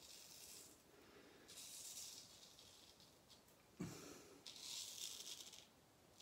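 Straight razor scraping through lathered stubble in a few strokes, a faint, crisp rasp. There is a dull bump about four seconds in.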